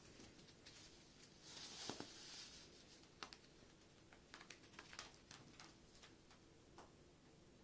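A crinkle cushion with rustling foil inside, crinkling faintly as a cat bites and kicks at it, with a short burst of crinkling about two seconds in, then a scatter of faint clicks and taps.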